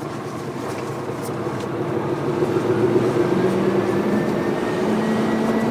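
Lorry's diesel engine heard from inside the cab as the truck pulls away, getting louder over the first few seconds as it picks up speed.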